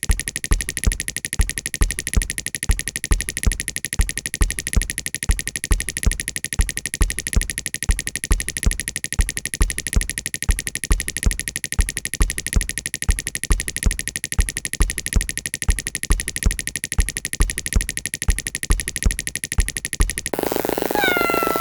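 Water-drop sound effect repeated so fast it runs together into a buzzing tone, with a basketball-bounce sound effect thumping about twice a second. Near the end, cat meow sound effects come in over it.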